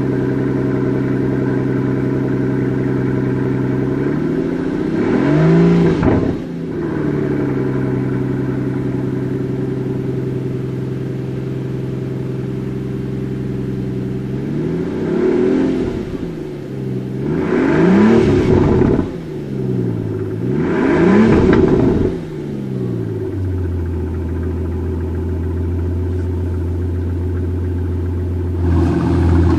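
Mercedes-Benz S 65 AMG Coupé's 6.0-litre twin-turbo V12 idling, heard from inside the cabin. It is blipped up in revs once about five seconds in and then three times in quick succession, each rev rising and falling back. After the revs the idle settles to a lower, deeper note, and near the end the sound turns louder and rougher.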